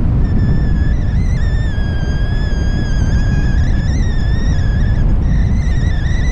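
Wind rushing over the microphone of a paraglider in flight, with a thin high whistling tone over it that wavers slightly in pitch and drops out briefly near the end.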